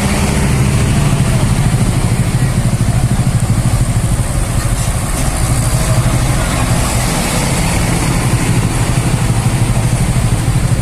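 Tour bus diesel engine running at idle close by: a steady low rumble with a fast, even pulse.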